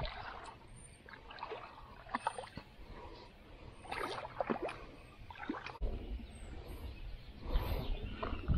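Wind gusting on the microphone, swelling near the end, with water noise, scattered short chirps and one sharp click about six seconds in.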